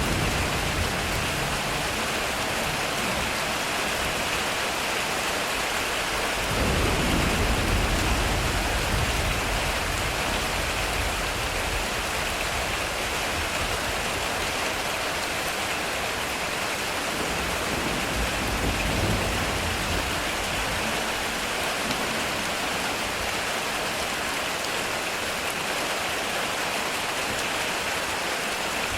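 Heavy rain falling on a metal roof as a steady, even hiss. A low roll of thunder swells about six seconds in and fades over a few seconds.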